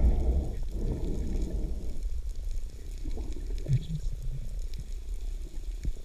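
Underwater water noise picked up through a camera housing: a low rumbling swish of water moving around the camera as a speared fish is held up, loudest in the first second or so, with a few faint clicks.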